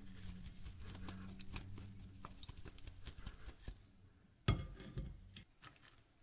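Boiled potato chunks tossed in a stainless steel mesh strainer to coat them in corn starch: a quick, irregular patter of soft taps and rattles over a low hum. About four and a half seconds in there is one sharp knock, then a few lighter ticks.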